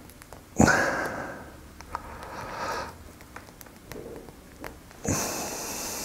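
Two loud, sharp nasal breaths, about half a second in and again about five seconds in, each fading out, with a fainter breath between them.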